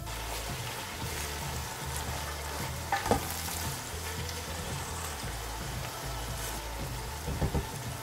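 Sliced onions sizzling as they fry in a large aluminium stockpot, with a silicone spatula stirring and scraping through them; the onions are still pale, early in the frying. A few light knocks come near the end.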